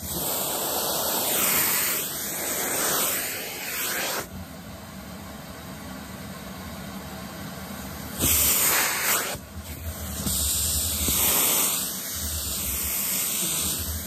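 Vacuum cleaner running, its crevice nozzle sucking at long synthetic doll hair: a steady motor hum under a rushing hiss of air. The hiss swells and drops as the nozzle moves and the hair is drawn in, with loud surges at the start, around the middle and again after about ten seconds.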